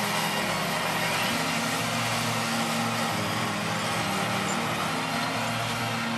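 John Deere 8295RT tracked tractor's six-cylinder diesel engine running steadily under load as it drives past pulling a reversible plough.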